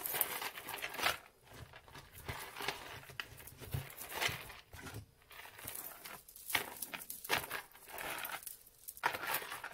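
A beaded necklace being handled: irregular light clicks and rustles.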